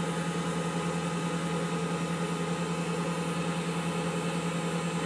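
Wood lathe running steadily, a constant motor hum with a faint hiss.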